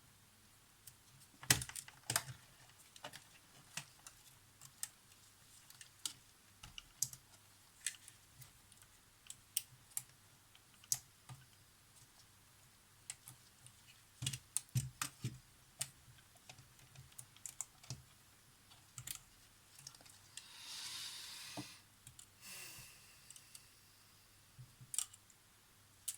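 Faint, irregular light clicks and taps of small hard objects being handled, with a short rustle about 21 seconds in.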